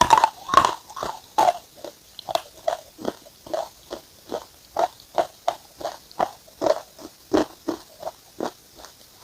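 A person chewing something crunchy, in steady regular chews about three a second. The loudest crunching comes in the first second, as from a fresh bite.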